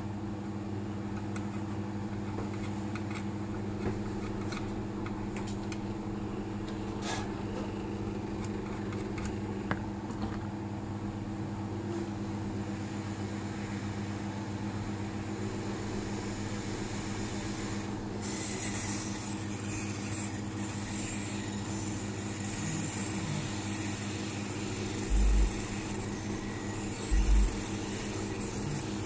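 Steady mechanical hum of a small electric motor or fan. About two-thirds of the way through, a rushing hiss of air joins it. Two low thumps come near the end.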